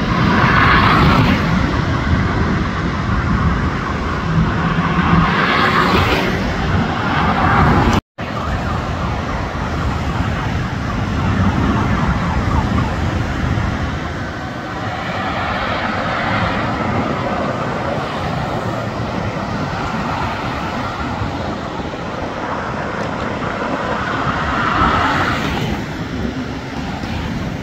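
Jet airliner's engines running as it passes low on final approach, swelling about a second in and again near six seconds. After a brief sudden dropout, a steady wash of road traffic and jet noise continues.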